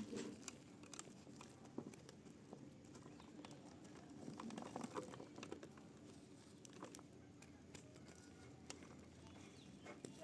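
Faint crackling and crumbling of dry mud being crushed, a loose scatter of small crisp clicks and soft crunches.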